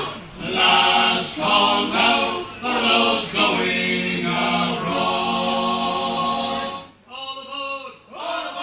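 Male a cappella vocal group singing in harmony, ending a phrase on a long held chord that stops about seven seconds in; fainter singing follows.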